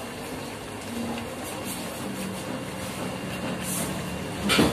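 Steady low hum and hiss around the stove as the menudo simmers in the wok, then a loud metal clank near the end as the ladle knocks against the wok.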